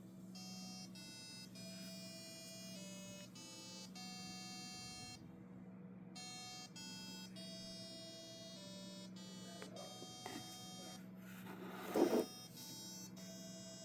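A small 8-ohm speaker driven by an Arduino Uno's tone() function plays a sequence of buzzy beeps that step to a new pitch every fraction of a second, with a pause of about a second near the middle. A steady low hum runs underneath, and a brief, louder noisy burst comes about twelve seconds in.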